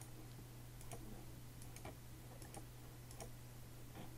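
Faint computer mouse clicks, a string of them with some in quick press-and-release pairs, over a steady low hum.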